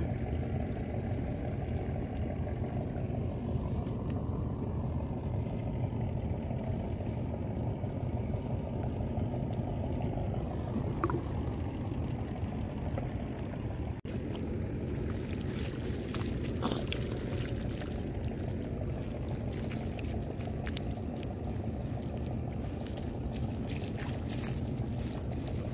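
Water splashing and running off a fine-mesh fishing net dragged through wet mud and shallow water, over a steady low rumble.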